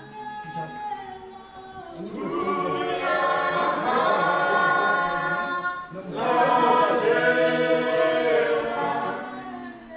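A group of voices singing together without instruments, in long held phrases that swell and fade twice.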